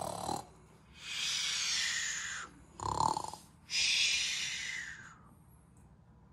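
A child making pretend snoring noises for a sleeping toy: two long, breathy hisses of about a second and a half each, with a short voiced noise between them.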